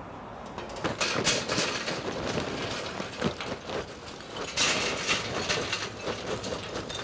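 Lump charcoal poured from a paper sack into a metal chimney starter: a rapid, irregular clatter of chunks knocking against each other and the metal. It starts about a second in and is heaviest around four and a half seconds in.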